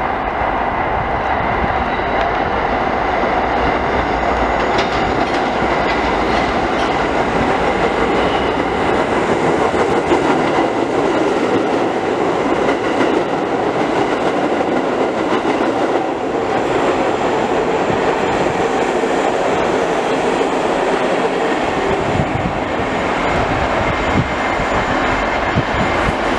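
New York City subway train approaching round a curve and running past the station platform: a steady rumble and rattle of wheels on rail, with a thin steady squeal over it.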